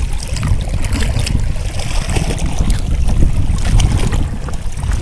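Wind rumbling on the microphone over water washing against a small boat, with scattered sharp clicks and knocks.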